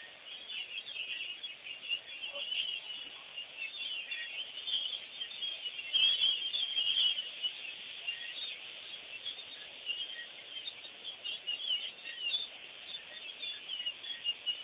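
A chorus of many small birds chirping and calling continuously, busiest and loudest about six to seven seconds in.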